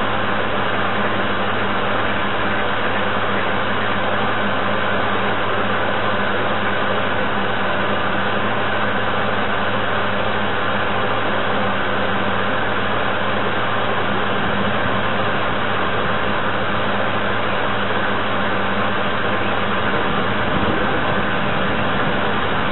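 Steady hum and whirr of the model paddle tug's drive and paddle wheels, picked up by a camera on board the boat. It runs at an even level, with a low steady hum under a dense hiss.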